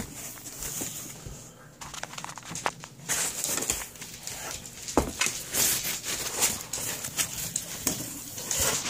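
Cardboard box and foam packing being handled: irregular rustling and scraping with scattered knocks, the sharpest about five seconds in.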